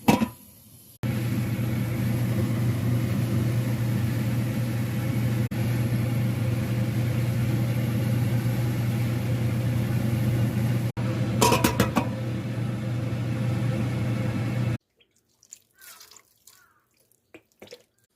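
A steady hiss over a low hum, with a few sharp knocks about two-thirds of the way through. It cuts off suddenly near the end, leaving only a few faint clicks.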